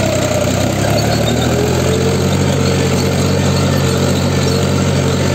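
Mahindra 265 DI tractor's three-cylinder diesel engine running steadily under load while pulling a nine-tine spring cultivator through the soil. A faint high whine comes in about two seconds in.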